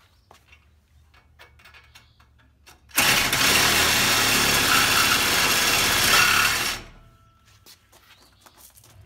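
DeWalt cordless reciprocating saw cutting into a galvanized steel square-tube trailer tongue. It runs steadily at full speed for nearly four seconds, starting suddenly about three seconds in and cutting off abruptly. Before it there are a few light knocks and clicks.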